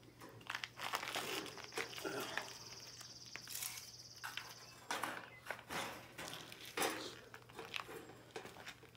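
Wire-mesh live cage trap being handled and set, with irregular clicks, knocks and metallic rattles of the wire door and frame. A high steady buzz runs from about a second in to nearly five seconds.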